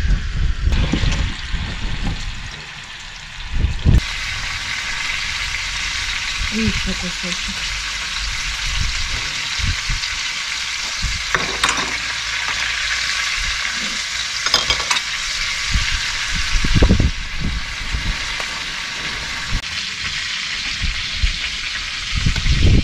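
Rabbit pieces frying in a pan: a steady sizzle that settles in about four seconds in, with a few sharp clicks and knocks of kitchen utensils.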